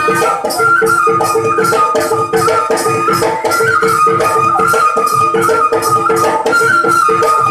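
Tiwa traditional folk dance music: a high, wavering melody line over two steady held tones, with drum strokes and a quick, even high percussion beat.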